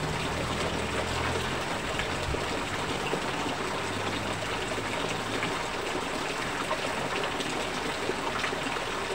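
Heavy rain falling steadily on pavement, with streams of water pouring down from above and splashing.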